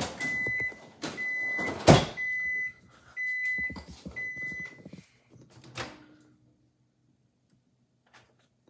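Microwave oven signalling the end of its cooking cycle with five beeps at one steady pitch, about a second apart, with a loud sharp knock about two seconds in and a smaller click near the end of the beeping.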